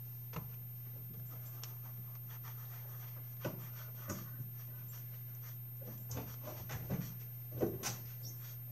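Ink sponge dabbing and rubbing ink through a stencil onto card: scattered soft taps and scrubbing strokes, over a steady low hum.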